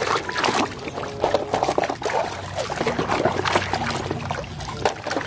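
Water pouring and trickling as a muddy toy is washed, with many small clicks and knocks throughout.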